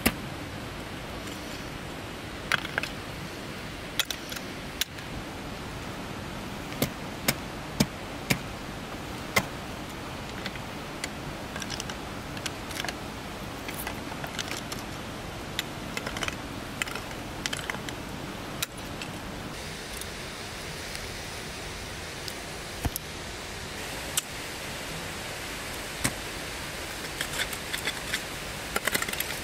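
Ice axe picks and crampon points striking the ice of a frozen waterfall: sharp, irregular impacts spaced a second or more apart, over a steady hiss.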